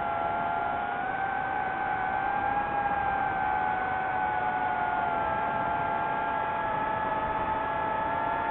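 DJI FPV drone's propellers and motors whining steadily in flight, several close tones drifting slightly in pitch as the motor speeds shift, over a rush of air noise.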